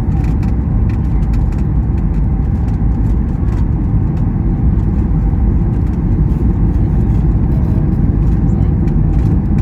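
Steady low rumble of a Boeing 737 MAX 8 heard inside the cabin, with faint light rattles throughout.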